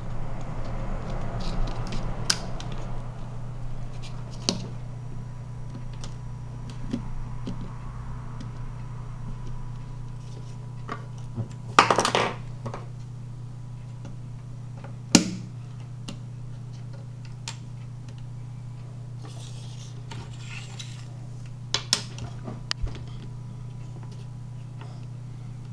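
Small doll figurines and their heart-shaped bases being handled and set down on a wooden desk: scattered taps and clicks, the loudest a few seconds apart near the middle, over a steady low hum.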